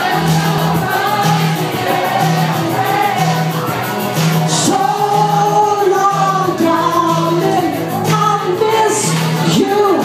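Loud pop music with singing over a steady bass beat.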